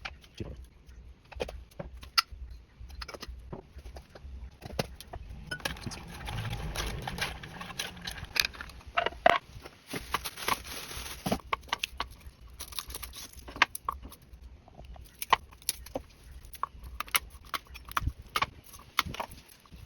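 Kitchen utensils and containers being handled, with repeated sharp clicks, clinks and knocks throughout and a few seconds of rushing noise in the middle.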